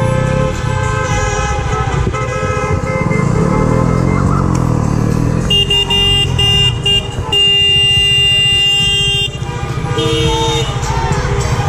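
Car horns honking: a few short toots about halfway through, then one long steady honk of about two seconds, over a low rumble of traffic and engines.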